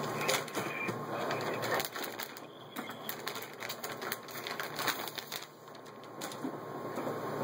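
Plastic packaging around a replacement laptop LCD screen crinkling and crackling as it is handled, a run of sharp crackles over a steady low hum.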